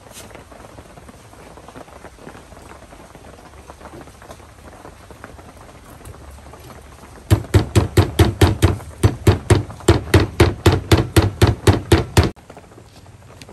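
Large knife chopping grilled dried fish on a thick round wooden chopping block: a rapid, even run of loud strokes, about five a second, starting a little past the middle and lasting about five seconds before stopping abruptly.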